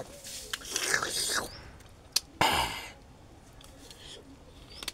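Someone eating a spoonful of mak mao berries: wet slurping and lip-smacking mouth noises, with a short louder slurp about two and a half seconds in and a few sharp clicks.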